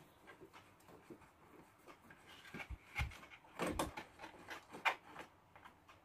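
Scattered clicks and knocks of a hand tool and wiring being worked against a scooter's metal frame while the horn's ground wire is fastened, with a cluster of knocks about three and a half seconds in and a sharp click near five seconds.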